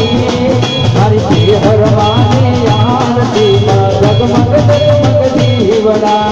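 Live Gujarati garba music: dhol and drums keep a fast, even beat under a wavering melody line.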